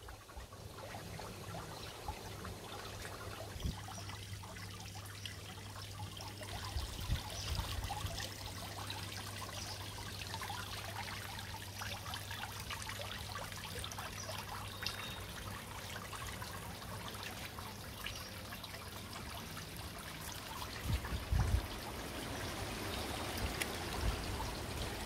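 Small pond fountain spraying water that falls back onto the pond surface: a steady splashing trickle. A few low bumps come and go, about seven seconds in and again near the end.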